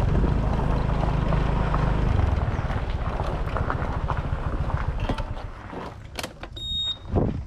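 Motor scooter engine running with its tyres rolling on gravel, the rumble easing off about five seconds in as the scooter comes to a stop. A few clicks follow, then a short high beep and a thump near the end.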